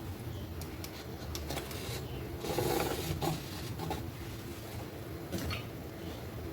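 Kitchen utensil working food in a pan: scattered light clicks and taps, with a stretch of scraping and rubbing about two and a half seconds in.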